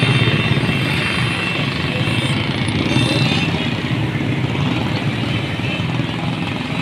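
Busy street traffic: a steady din of motorcycle and motor-rickshaw engines passing.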